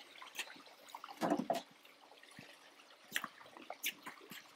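A coiled rubber power cord being unwound by hand and dropped in loops onto stone paving: a handful of soft scuffs, rustles and light slaps, the loudest about a second in.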